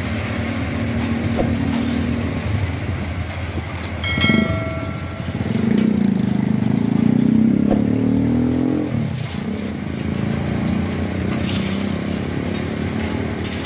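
Ballast train's loaded hopper wagons rolling slowly along new track, under a low engine rumble that swells and rises in pitch for a few seconds in the middle. A horn sounds briefly about four seconds in.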